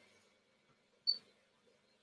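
A short, high beep from a 3D printer's touchscreen control panel about a second in, as a Z-jog button is pressed, followed by a brief burst of motor noise from the small Z move. A faint, steady low hum runs underneath.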